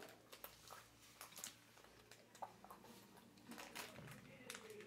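Near silence with faint, scattered crinkles and clicks of a foil-lined candy-bar wrapper being handled, along with quiet chewing.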